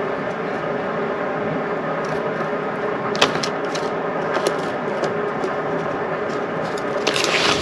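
A steady machine-like hum made of several steady tones, with a sharp click about three seconds in and a fainter one a little later; near the end a louder hiss of noise comes in.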